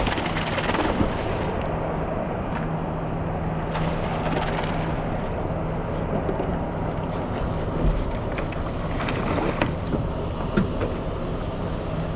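A boat's motor running steadily as a low hum under a wash of wind and water noise, with a few light knocks in the second half.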